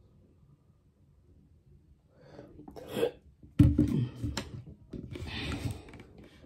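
Close-miked handling noise: a few knocks and clicks from about two seconds in, then a breathy rustle, as a plastic maple syrup jug is capped and moved after pouring.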